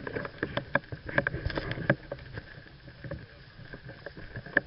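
Irregular clicks, knocks and rattle, about two or three a second, with a low rumble: handling noise of a gun-mounted camera and the player's gear while walking over grass.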